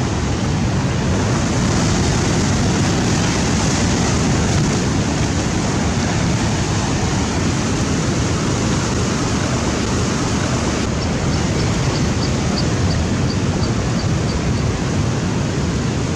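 Rough sea breaking over a rocky shore and washing across the rock shelf in a steady, unbroken surge of surf.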